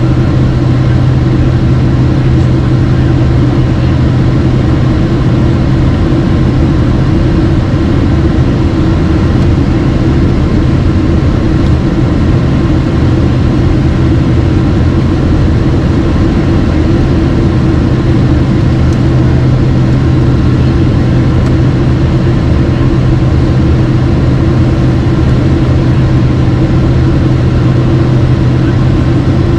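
Steady cabin drone of a Boeing 767-300 with General Electric CF6 engines: an even, unchanging rush of engine and air noise with a low hum and a few held tones.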